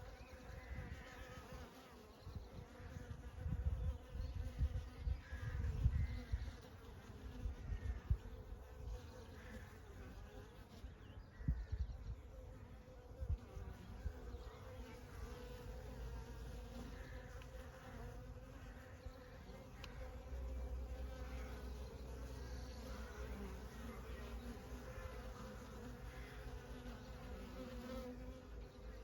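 Honey bees buzzing in a steady, continuous hum. Uneven low rumbles come and go under it, strongest in the first several seconds.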